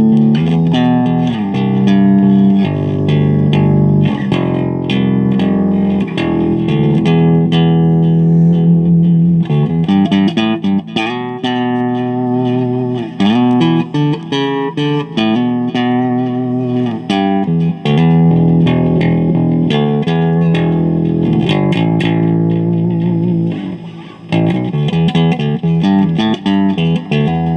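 Samick electric bass guitar played through an amplifier: a continuous run of plucked notes and short riffs, with a few bent notes. It is a play test after repairs to its output jack and internal wiring, and it sounds clean.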